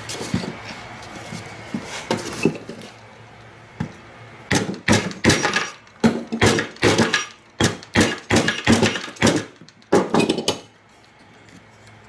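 Wooden toy parts being knocked together with a hammer: a regular run of sharp strikes, two to three a second, for about six seconds starting partway in. This is typical of a wooden wheel being driven onto its glued dowel.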